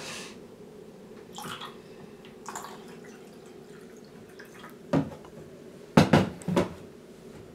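A couple of brief splashes of water, then several sharp clunks as an electric kettle is handled, the loudest one about five seconds in and a quick cluster about a second later.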